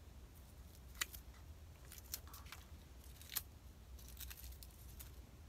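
A few faint, sharp clicks and crackles from a Miltonia spectabilis orchid being handled and trimmed of dead leaves, over a low steady hum.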